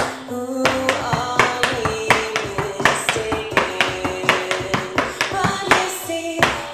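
Tap shoes striking a wooden tap board in a rapid run of sharp taps, over a song with a singing voice.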